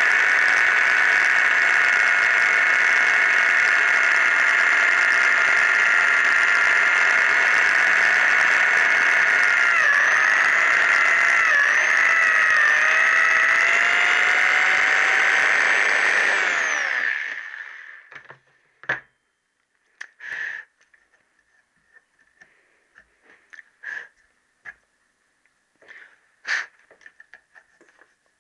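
Electric drill running at speed with a steady whine while its bit takes metal off a connecting rod. Its pitch dips a few times as it bites, about ten to thirteen seconds in, and it winds down about seventeen seconds in. A few light clicks and knocks of metal parts being handled follow.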